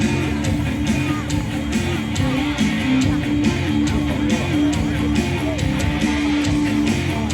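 Music: strummed guitar with a steady beat.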